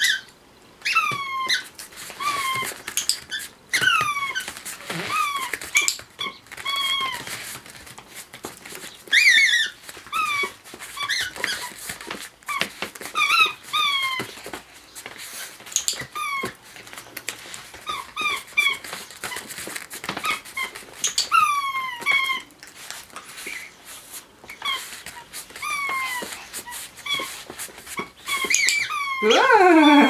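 Rubber smiley-face squeaky toy squeaking over and over as a dog presses it with its paw, roughly once a second. Each squeak is a short tone falling in pitch. Near the end comes a louder, longer squeak that slides much lower.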